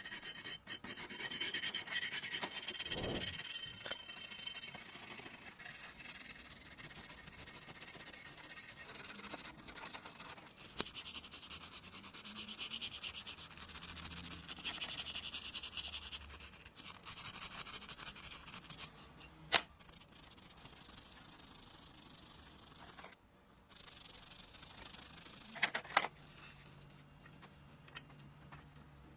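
Abrasive rubbing on metal, as in sanding or scrubbing rust off an old tool: a long run of scratchy back-and-forth strokes, with a couple of sharp clicks near the end.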